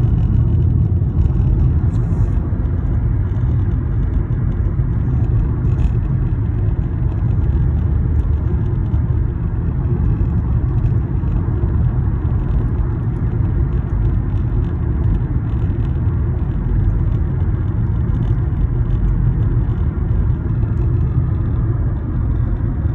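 Steady low rumble of a car driving on the road, heard from inside the cabin: tyre and engine noise.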